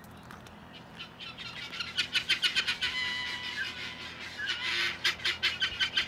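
Guineafowl calling in a fast, repeated chatter of short notes, several a second, starting about a second in and growing louder.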